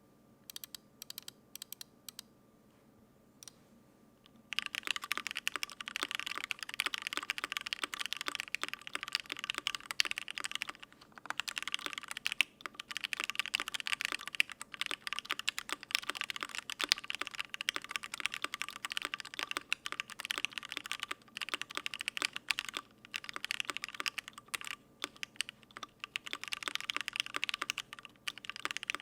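Typing on a gasket-mounted Volcano 660 custom mechanical keyboard with lubed Gateron Ink Black linear switches, a sandblasted brass plate and GMK keycaps. A few separate keystrokes come first, then about four seconds in it breaks into steady fast typing with short pauses.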